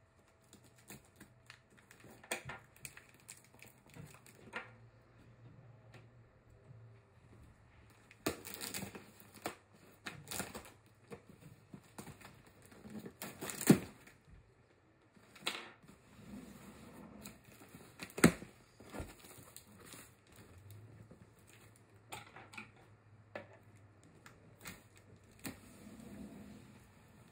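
A cardboard shipping box being opened: a box cutter slits packing tape, and cardboard flaps are torn and pulled open, with kraft-paper packing crinkling. The sound is a run of irregular rustles and sharp cracks, with two louder snaps, one about halfway through and one a few seconds later.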